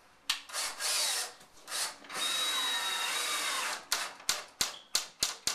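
Cordless drill driving screws into a drywall patch. The trigger is pulled in short runs, then held for about a second and a half with a steady high motor whine. Near the end come six or so quick blips as a screw is seated.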